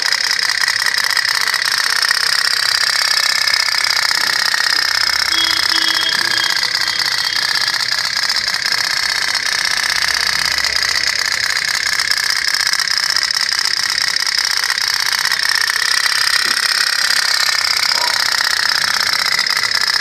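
Tin pop-pop (putt-putt) toy steam boat, heated by a small candle, running with a rapid, steady stream of sharp pops from its tiny steam engine.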